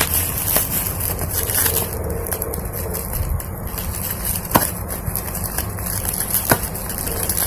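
A parcel being unwrapped by hand: packaging rustling and crinkling, with a few sharp clicks and snaps.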